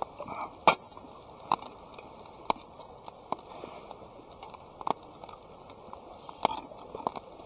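Campfire crackling: sharp, irregular pops roughly a second apart over a faint steady hiss.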